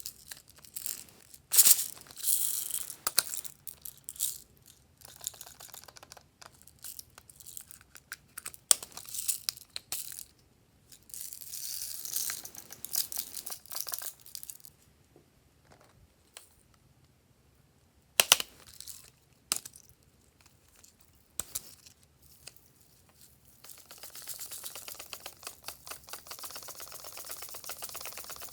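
Glossy slime being squished, poked and stretched by hand: sticky crackling and popping clicks in irregular bursts, with a few louder sharp pops.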